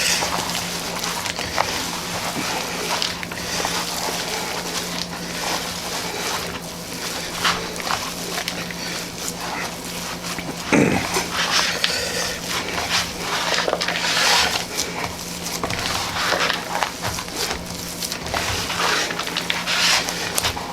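Raw ground beef being kneaded and folded by hand with shredded cheese, jalapeños and onion soup mix, an irregular wet squishing and squelching, over a steady low hum.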